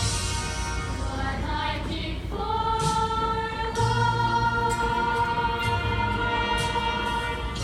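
A group of young voices singing a show tune together, holding long notes, with a new long-held note coming in about two seconds in.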